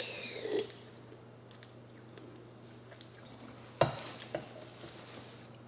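A quiet room with a low steady hum. Faint drinking sounds come from a soda can near the start, then a sharp knock about four seconds in as the can is set down on the table, and a smaller tap just after.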